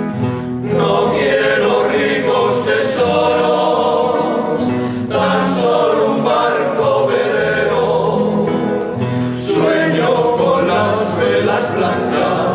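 Background music: a choir singing a song with sustained low accompanying notes.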